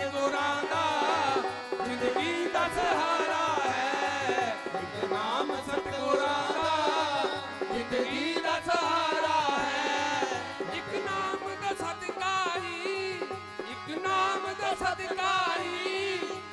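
Devotional Punjabi song: harmonium with male voices singing a wavering melody over a steady dholak drum rhythm.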